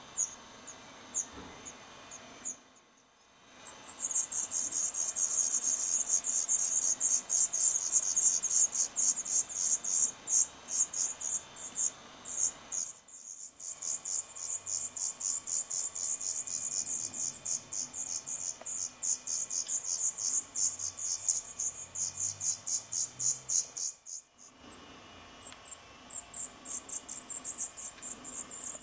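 Black redstart nestlings begging: a rapid, very high-pitched chorus of calls at several per second, loud for most of the stretch and broken off briefly twice, with only sparse single calls at the start and near the end.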